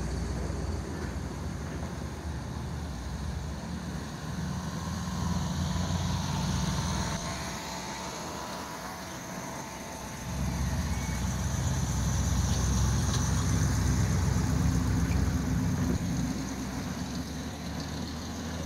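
Older cars and trucks driving slowly past with their engines running, one after another. The loudest pass comes about ten seconds in and lasts several seconds.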